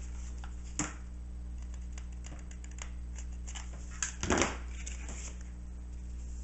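Tools being handled on a countertop: a small click about a second in and a louder knock and clatter around four seconds in as a hot glue gun is picked up, over a steady electrical hum.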